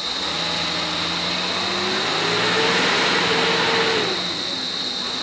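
Motor vehicle engine idling, with a rev in the middle: the pitch rises and the sound grows louder for about two seconds, then drops back to idle.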